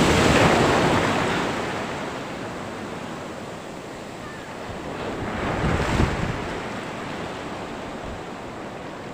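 Strong sea waves washing and surging past the boat, with wind buffeting the microphone. A loud surge comes at the start and another about six seconds in.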